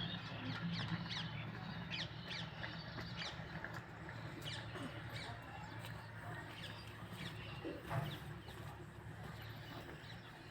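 Wild birds calling, many short quick chirps overlapping one another, over a low steady hum. There is one louder sound about eight seconds in.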